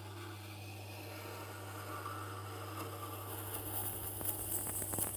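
A scissor blade clamped in a Tormek SVX-150 jig being ground on the turning Tormek wheel: a scraping, grinding noise that grows louder and rougher over the last two seconds, then stops abruptly. The creaking in it is normal while the blade's tip is not yet all the way through the pass.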